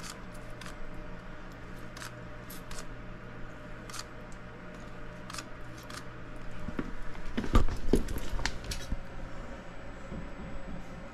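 Hand trigger spray bottle of bubble leak-detector solution squirted in short sprays onto the refrigerant line fittings of an air-handler coil during a leak search. About seven to eight seconds in comes a louder bout of knocking and rustling, over a steady low hum.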